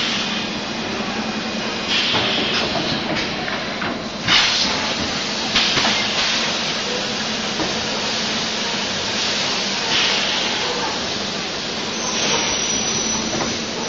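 DKW12T six-head extrusion blow molding machine running with a steady hum, punctuated by several hissing blasts of compressed air a few seconds apart as its pneumatic cylinders and blowing air cycle.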